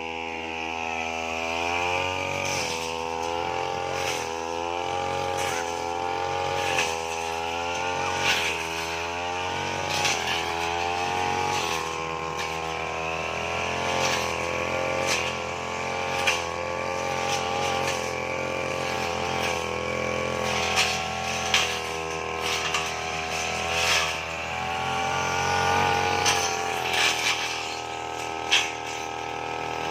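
Brush cutter engine running hard while cutting thick grass, its pitch dipping and rising again as the blade meets the growth. Frequent sharp ticks of stems and debris striking the blade.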